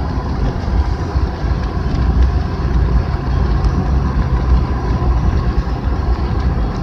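A vehicle driving along a paved road, heard from inside the cab: a steady low rumble of engine and road noise.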